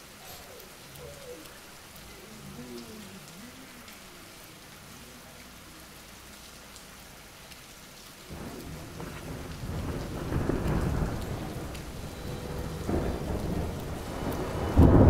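Steady rain, then thunder rumbling in from about eight seconds in and swelling, with a sudden loud clap near the end.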